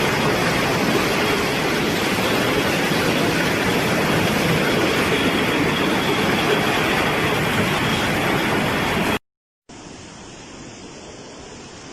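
Steady loud rush of floodwater. About nine seconds in it cuts off abruptly, and after a short silence a much quieter, steady rush of water follows.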